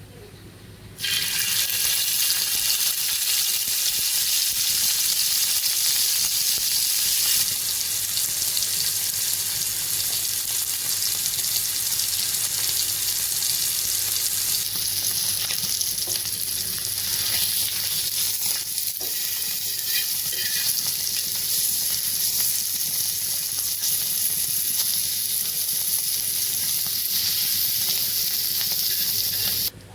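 Food sizzling in hot oil in a pan: a loud, steady hiss that starts suddenly about a second in and cuts off just before the end.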